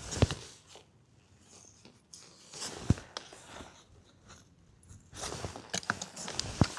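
Crunching and scraping as rusty nails buried in the ground are dug out and picked up, in a few short bouts with sharp clicks; the loudest click comes about three seconds in.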